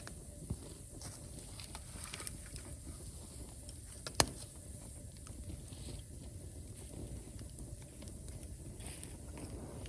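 Bamboo bonfire burning down to embers, crackling with small scattered ticks and one sharp, loud pop about four seconds in.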